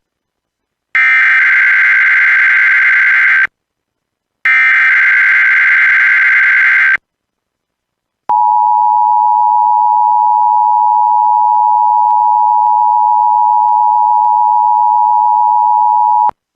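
NOAA Weather Radio test signal: two bursts of the SAME digital header data, each about two and a half seconds, then the steady warning alarm tone for about eight seconds, which cuts off sharply.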